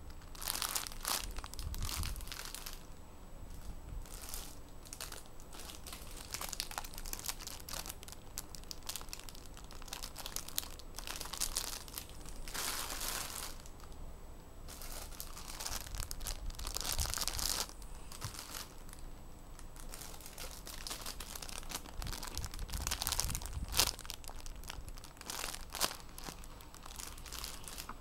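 Clear plastic bags around squishy toys crinkling and rustling as they are handled and moved about, in irregular bursts, with a sharp crackle near the end.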